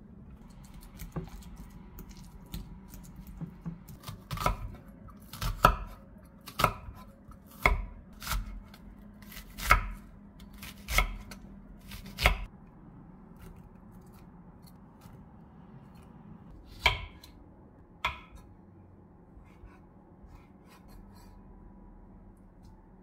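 Kitchen knife chopping onion on an end-grain wooden cutting board: about eight sharp knocks roughly a second apart, then two more a few seconds later.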